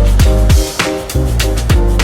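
Background music with drums, bass and pitched instrument notes on a steady beat.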